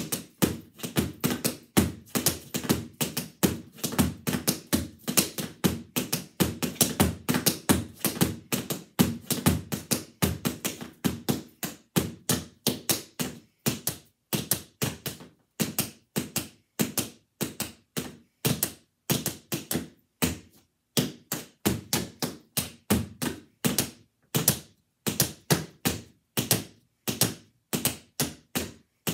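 Tap dancing: the metal taps of tap shoes striking a mat laid over carpet. Fast, dense runs of clicks fill roughly the first twelve seconds, then the taps come in short rhythmic clusters with brief pauses between them.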